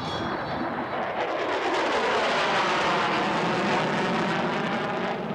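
B-1B Lancer bomber's four afterburning turbofans at full afterburner on a climbing pass: a loud rushing jet noise with a slowly sweeping, phasing sound. It swells over the first couple of seconds and eases slightly near the end.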